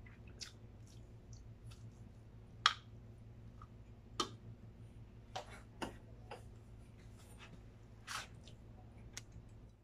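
Quiet eating sounds: a spoon clicking against a ceramic plate and mouth noises of chewing. They come as about a dozen scattered sharp clicks, the loudest nearly three seconds in, over a faint low hum.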